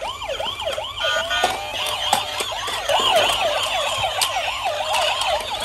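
Several battery-powered toy police and emergency vehicles sounding their electronic sirens at once. Overlapping wailing tones rise and fall a few times a second.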